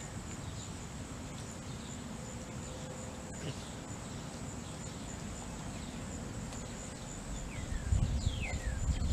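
Outdoor ambience: a steady high insect trill pulsing a few times a second, with a couple of descending bird chirps in the second half. Low rumbling builds over the last second or so.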